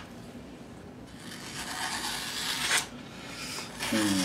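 Knife blade slicing through a sheet of magazine paper to test the edge's sharpness: a rasping cut of about a second and a half that ends in a sharp snap as the blade clears the paper. A brief vocal sound follows near the end.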